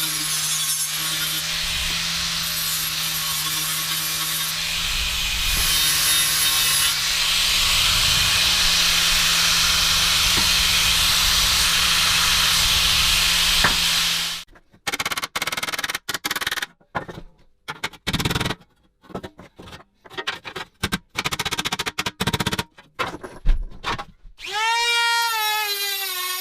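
A power tool runs steadily with a motor hum under a harsh grinding noise. Then comes a string of short, choppy bursts of tool noise broken by abrupt silences, and near the end a high, wavering whine.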